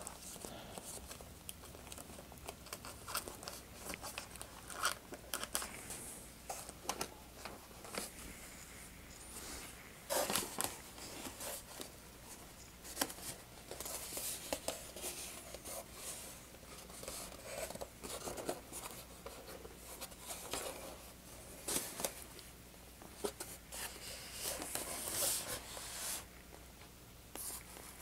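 Handling noise from an E-Flite PT-17 foam model biplane: rustling, scraping and scattered small clicks as its lower wing and wires are worked into place and the model is lifted and turned over.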